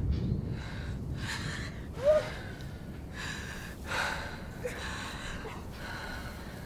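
A woman breathing hard in ragged gasps, about one breath a second, with a short voiced gasp about two seconds in that is the loudest sound.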